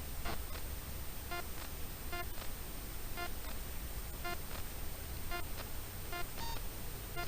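Short nasal animal call repeated about once a second, each note a single pitched honk, over a low steady rumble.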